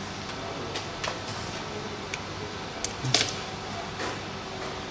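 A few scattered light clicks and taps from handling small parts and tools, one louder click about three seconds in, over a faint steady hum.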